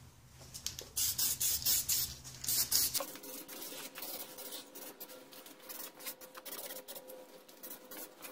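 Aerosol can of zinc primer spraying in several short hissing bursts, then fainter and more broken up after about three seconds.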